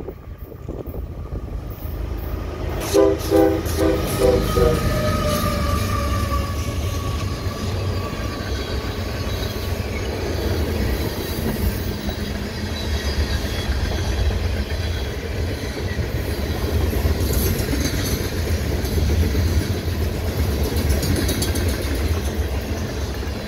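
Freight locomotive horn sounding a quick string of about five short chord blasts a few seconds in, a horn-show salute from the engineer, as the diesel locomotives pass. Then the manifest train's tank cars roll by with a steady rumble and the clack of wheels over the rails.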